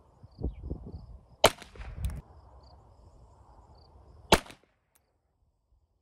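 Two shots from a GSG 1911 pistol chambered in .22 LR, about three seconds apart, each a short sharp crack, over a low rumble.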